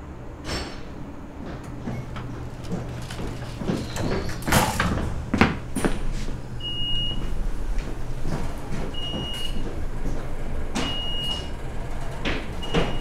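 Irregular knocks and bangs over a low steady hum, the loudest a little over four seconds in. From about halfway a short high beep sounds four times, roughly two seconds apart.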